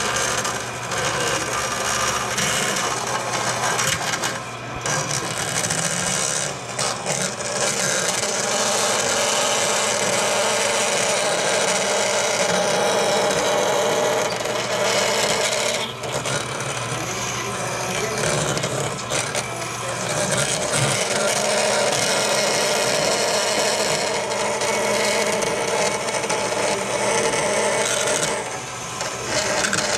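Vertical bandsaw running, its blade cutting through a thin aluminum sheet: a steady rasping screech over the saw motor's hum. It eases off briefly a few times as the sheet is steered along the cut line.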